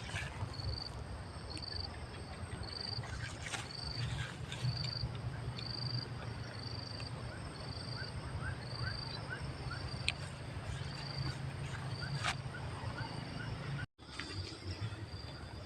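Forest animal calls: a short high-pitched note repeating steadily, roughly one every three-quarters of a second, joined about halfway through by a quick run of short rising chirps. A low rumble runs underneath, and the sound drops out for a moment near the end.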